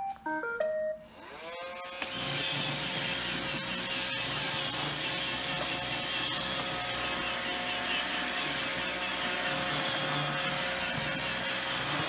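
iRobot Roomba 618 robot vacuum starting a cleaning run: a short tune of stepped beeps, then its motors spin up with a rising whine that settles into a steady hum over the running vacuum and brushes.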